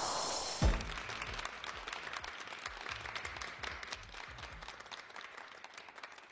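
A swishing sound effect ends in a thump about half a second in, then a studio audience applauds, the clapping fading away gradually.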